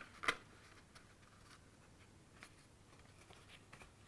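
Cardstock paper box being pressed and handled: one sharp papery crackle shortly after the start, then a few faint light taps and rustles.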